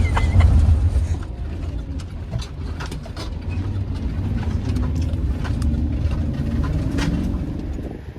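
Vehicle engine and road rumble heard from inside the cabin, a steady low drone with a few light clicks and rattles.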